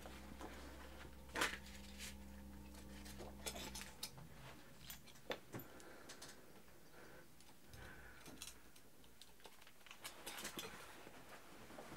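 Faint handling sounds in a quiet room: scattered small clicks and knocks as a person picks up and moves small objects, with one sharper click about a second and a half in. A low steady hum stops about four seconds in.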